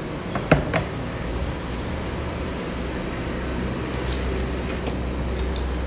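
Steady low hum with a few sharp clicks about half a second in, and faint clicks of eating near four seconds as lobster tail meat is bitten.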